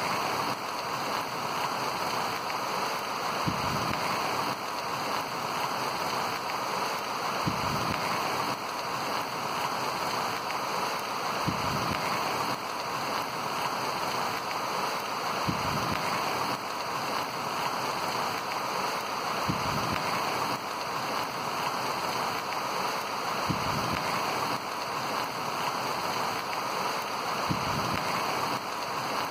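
Heavy rain pouring steadily, an even hiss of rain on wet ground and standing water.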